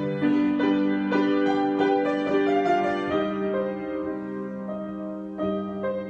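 Piano improvisation: slow, sustained chords with single melody notes over them, ringing on between strikes. It grows softer through the middle and a new chord is struck about five seconds in.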